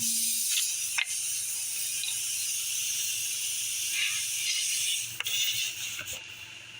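Air hissing steadily out of a punctured tire through the nail hole, cutting off about five seconds in, with a few sharp clicks from the plug tools.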